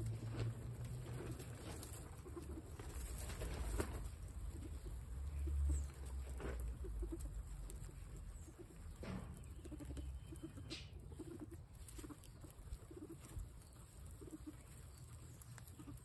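A group of guinea pigs feeding on fresh grass, with scattered short, soft, low cooing sounds and small clicks of chewing and rustling straw, over wind rumbling on the microphone.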